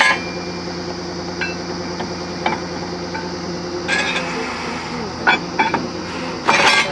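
Truck-mounted borewell drilling rig's engine running steadily, with sharp metal clinks that ring briefly, coming every second or so at an irregular pace and in a quick cluster near the end.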